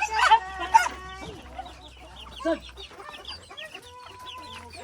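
Several chickens clucking and calling, with louder calls in the first second and about two and a half seconds in, and many short, high chirps in between.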